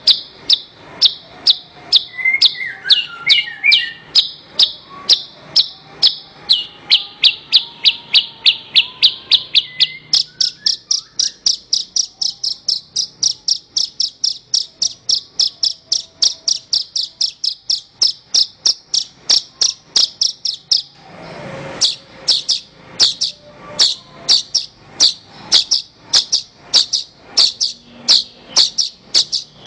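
Javan bushlark (branjangan) singing: a long run of short, sharp, high repeated notes, about three a second, quickening a little about a third of the way in. A brief burst of noise cuts in about two-thirds of the way through.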